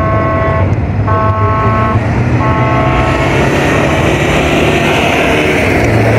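A horn sounds three times in a row, each blast under a second long, over a steady engine drone. Then a rally pickup truck speeds past with its engine running hard, with a swelling rush of tyre and dirt noise from about three seconds in.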